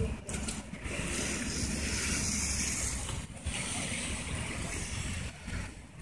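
Wind blowing in a snowstorm, buffeting the microphone: a steady rushing hiss over a low rumble, easing off near the end.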